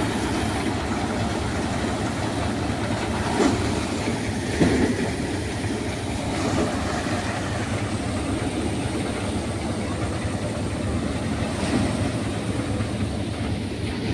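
Tractor-driven Panesar six-fan paddy thresher running while rice is fed through it: a steady drone from the tractor engine and the spinning threshing drum and fans, with straw blown out of the chute. A couple of brief sharper knocks stand out a few seconds in.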